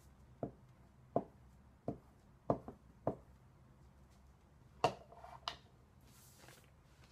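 Glue stick knocking and rubbing against paper on a wooden tabletop as glue is spread: about eight short, sharp knocks at an uneven pace over five seconds. A brief rustle of paper being smoothed by hand follows near the end.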